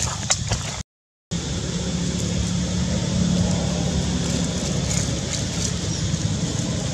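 Motor vehicle engine running steadily, a low hum with a brief gap about a second in.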